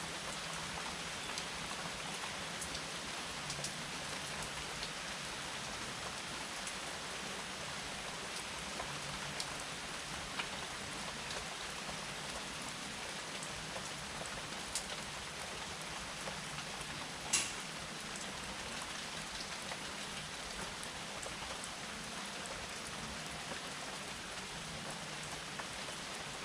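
Steady rain falling on a surface, an even hiss with scattered individual drops ticking, one louder drop about two-thirds of the way in.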